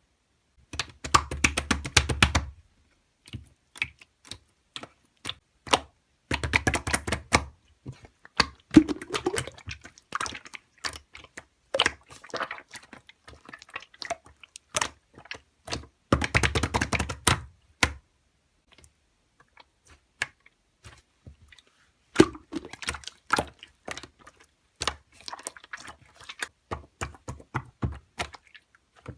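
Slime being handled: bursts of crackling clicks and pops, denser three times over, with scattered single clicks in between.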